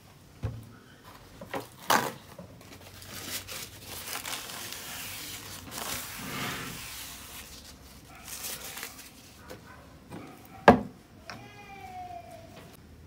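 A glass and a plastic juice bottle being handled on a table: a few light knocks as they are set down, a few seconds of crinkling plastic, then a sharp click and a short squeaky tone near the end.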